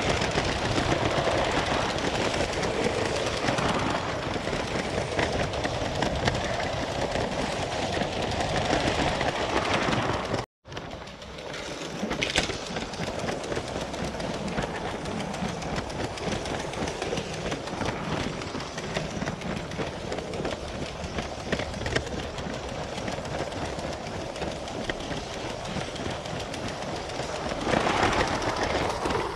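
Lego 12V train running on its track, heard from on board: a steady rattling whir with many small clicks from the wheels and track. The sound cuts out for a moment about ten seconds in, then carries on.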